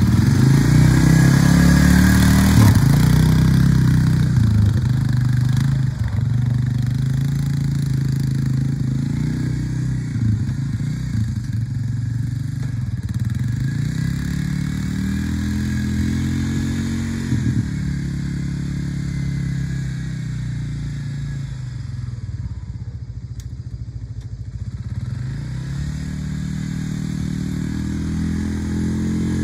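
1995 Honda Fourtrax ATV's single-cylinder four-stroke engine running as the quad is ridden, its pitch repeatedly rising and falling as the throttle is opened and eased off. It grows softer about three quarters of the way through, then comes back up near the end.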